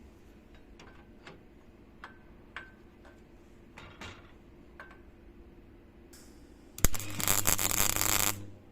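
Several light clicks and taps, then a sharp crack and a loud electric motor running for about a second and a half before stopping.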